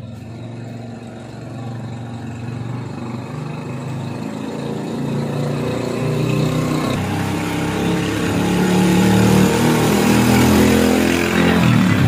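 A motor vehicle's engine approaching and growing steadily louder over about ten seconds, then cutting off sharply near the end.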